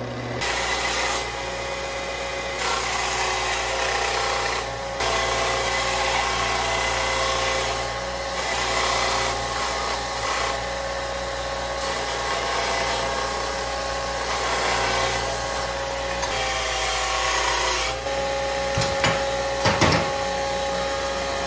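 Belt grinder running, with metal plate pressed against the belt: a steady motor hum under a rough grinding hiss that comes and goes in passes as the plasma-cut edges are dressed. Near the end the grinding stops, leaving the motor running, with a few sharp knocks.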